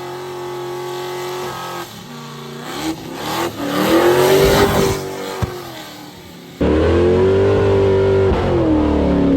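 Car engine revving hard for burnouts: held high at first, then climbing to a peak and falling away. An abrupt cut near the end brings in a louder stretch where it revs up and back down again.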